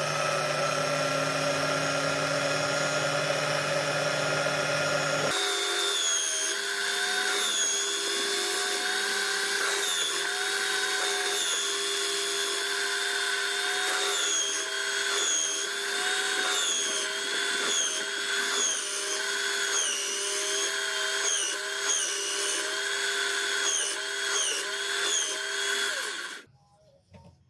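Small electric power tool, drill-like, working wood. Its motor spins up with a rising whine, then after a sudden change runs on steadily, its pitch dipping and recovering again and again. It cuts off abruptly about a second before the end.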